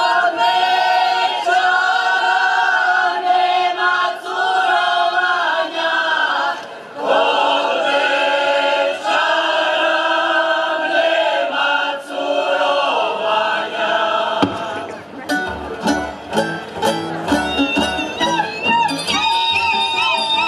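A group of voices singing a traditional Slavonian folk song unaccompanied. About three-quarters of the way in, a folk string band with plucked strings, fiddle and bass starts to play.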